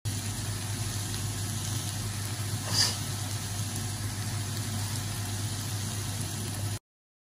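Scrambled eggs sizzling in a non-stick frying pan over a steady low hum, with one brief louder scrape of the wooden spatula against the pan about three seconds in.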